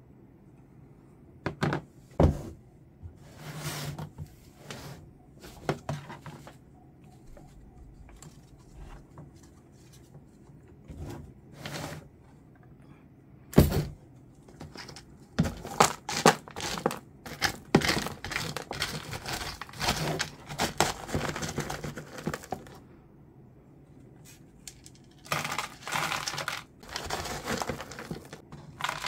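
Irregular rustling and crinkling with scattered sharp knocks, from hands handling houseplants and their pots. One loud knock comes about halfway, and the rustling grows busier in the second half.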